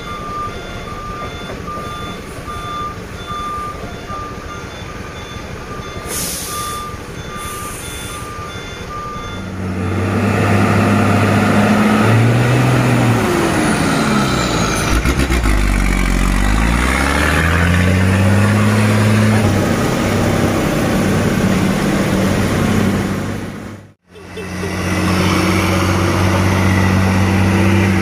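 A truck's reversing beeper sounding a steady run of beeps, with two short air-brake hisses. From about ten seconds in, heavy truck diesel engines run loudly under load, their pitch rising and falling as they rev while manoeuvring, then after a brief break near the end a truck engine runs steadily.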